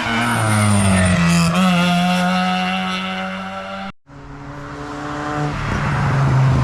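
Hill-climb race car engines at high revs: one car passes close, its engine note dropping in pitch and fading. After a sudden cut about two-thirds in, another car approaches, its engine growing louder and rising in pitch.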